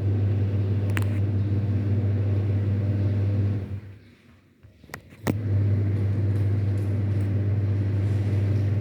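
Washing machine motor running with a loud, steady hum. It stops about three and a half seconds in, and a sharp click comes just before it starts again about a second and a half later: the on-off pattern of a wash cycle.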